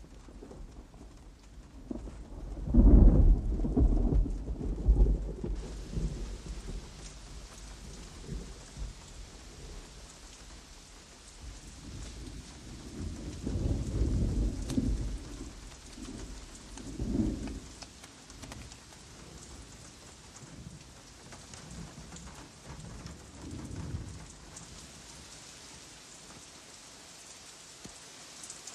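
Steady rain with rolling thunder. A long low rumble comes about three seconds in and another around the middle, with smaller rolls later. The rain's hiss grows fuller about five seconds in.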